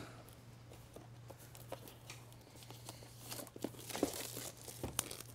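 Clear plastic shrink wrap being torn and crinkled off a new iPad box, in scattered short rustles and clicks that are busiest about three to four seconds in.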